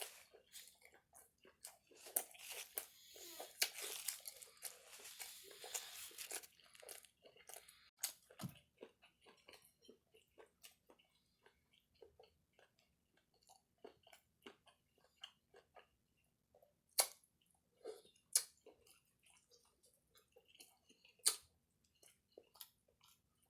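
Close-up chewing and crunching of turkey leg skin, with a dense crunchy stretch in the first several seconds. It settles into quieter, scattered mouth clicks and smacks, with a few sharper clicks later on.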